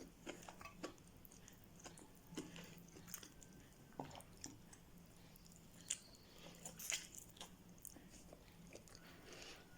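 Faint chewing and biting of fried chicken close to the microphone, with scattered small crunches and mouth clicks.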